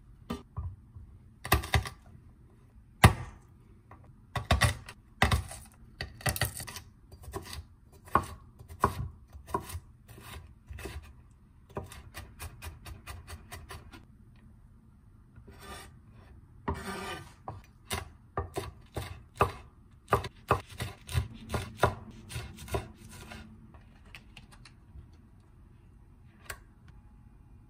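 Chef's knife chopping and mincing garlic on a thick wooden cutting board: irregular sharp strikes of the blade on the board, with a run of fast, even mincing chops around the middle.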